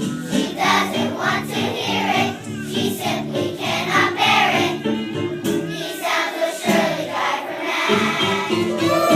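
Children's song: voices singing together over instrumental backing.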